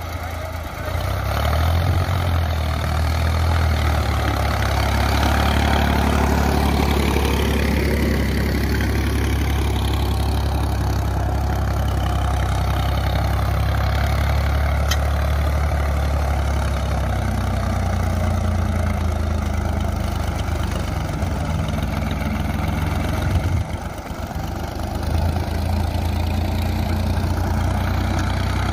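Escort 355 tractor's three-cylinder, 47 hp diesel engine running steadily under heavy load as it pulls a 16-disc harrow in high gear, working hard enough to blow black exhaust smoke. The engine note grows louder about a second in and dips briefly about three quarters of the way through.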